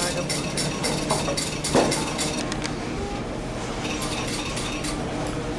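Quick light clinking and clattering of small hard objects being handled, thinning out after about three seconds.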